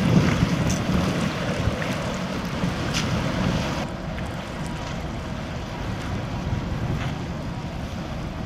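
Wind gusting on the microphone over choppy harbour water, a rough steady rush that is heaviest in the low end. It gets a little quieter and duller about four seconds in.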